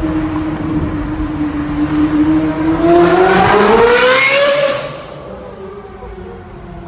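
Ferrari 458's V8 with an aftermarket exhaust at high revs. A steady engine note climbs sharply in pitch from about three seconds in, then drops away suddenly about five seconds in, leaving a quieter engine sound.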